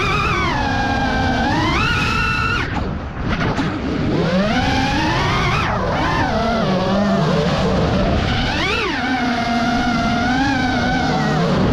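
An engine revving, its pitch climbing and falling again and again, with a quick rise and drop about nine seconds in.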